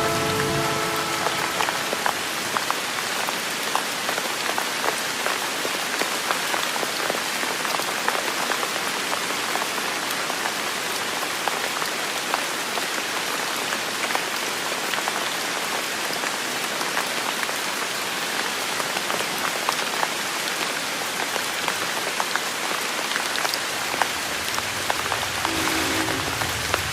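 Steady rain with many sharp individual drops. A distant train horn chord ends about a second and a half in, and the horn sounds again near the end.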